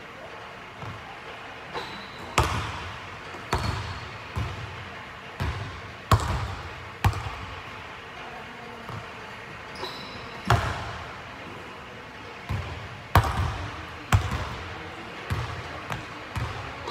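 A basketball bouncing on a hardwood gym floor: a dozen or so sharp thuds at uneven intervals, each echoing through the large hall.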